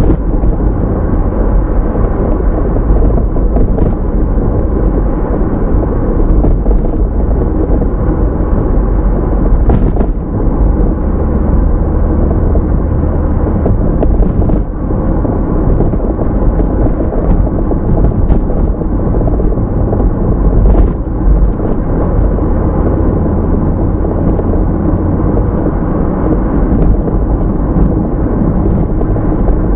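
Car driving: steady low rumble of tyre and road noise with engine hum, with a couple of faint knocks along the way.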